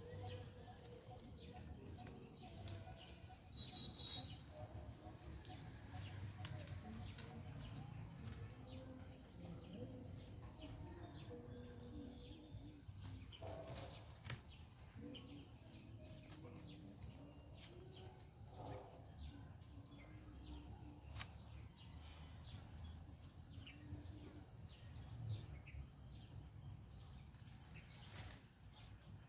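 Faint garden ambience with birds chirping and calling, over scattered sharp clicks and snaps from branches being handled and cut.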